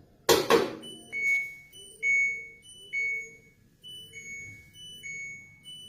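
Two sharp clicks, then an LG washing machine's control panel playing a short electronic melody: clear beep notes at changing pitches, about one a second.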